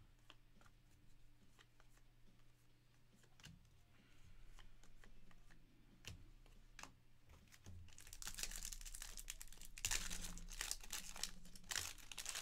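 A trading-card pack wrapper being torn open and crinkled. It is loudest and most continuous over the last four seconds, after several quiet seconds of faint ticks from cards being handled.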